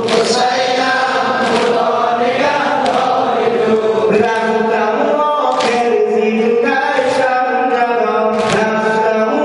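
A man chanting a Shia mourning lament (noha) through a microphone, answered by a chorus of men. Regular chest-beating strikes land about every second and a half in time with the chant.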